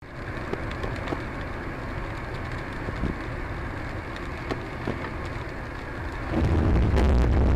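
Steady road and tyre noise of a car driving on a wet road, heard inside the cabin, with a few sharp ticks scattered through it. About six seconds in, a much louder low rumble sets in and holds.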